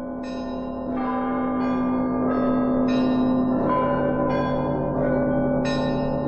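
Church bells ringing: smaller bells struck in a steady run, about one stroke every two-thirds of a second, over the sustained hum of a larger bell, swelling up as it fades in.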